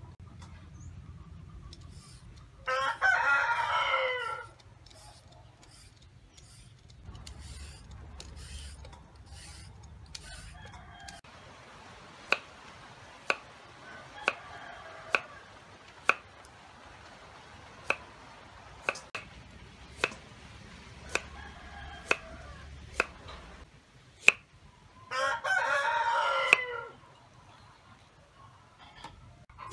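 A rooster crows twice, about three seconds in and again near the end, each crow under two seconds long. In between, a knife chops carrot on a wooden cutting board in single sharp strokes about a second apart, while hens cluck faintly.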